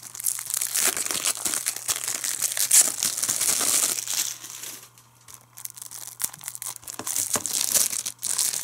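Clear plastic shrink-wrap being torn and peeled off a Blu-ray case, crinkling and crackling for about five seconds, a short lull, then more crinkling near the end as the film is pulled free.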